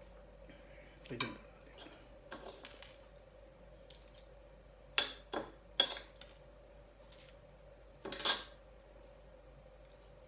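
Metal spoon clinking and scraping against a bowl and plates while eating: a series of sharp clinks, loudest about five to six seconds in, and a longer scrape about eight seconds in.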